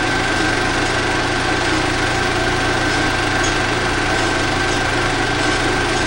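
16mm film projector running with a steady mechanical whir and hum.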